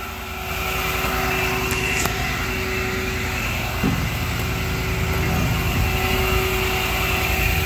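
A crane's engine running steadily, picking up a little about half a second in as the crane is put to work lowering the load.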